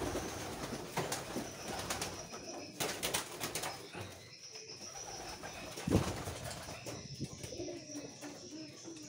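Domestic pigeons cooing in a loft, with wing flapping and scuffling knocks as a young pigeon is caught by hand. A sharp thump sounds about six seconds in, and low wavering coos come near the end.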